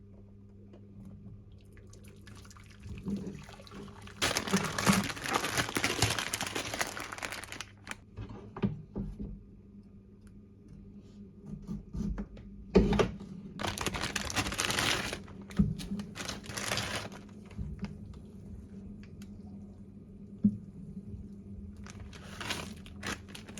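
Liquid pouring or running in several bursts of a few seconds each, with scattered small knocks and clicks, over a faint steady low hum.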